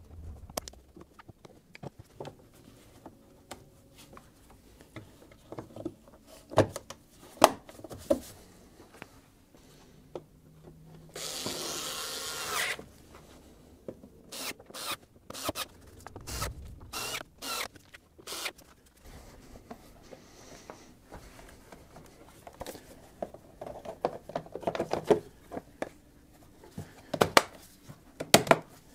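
Hand work on car parts: scattered clicks, knocks and rubbing of parts and tools being handled and fitted. A rasping noise lasts about a second and a half, about eleven seconds in, and a quick run of sharp clicks follows soon after.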